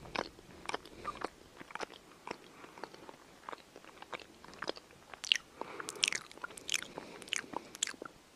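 A cat grooming, licking and nibbling at fur, making small wet clicks and smacks at irregular intervals, busier and louder from about five seconds in.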